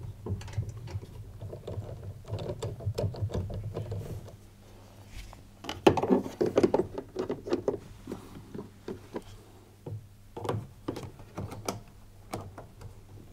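Plastic fan and fan cover of a tumble dryer being handled and fitted back into the fan housing: a run of clicks, knocks and light rattles, loudest in a rattling cluster about six seconds in.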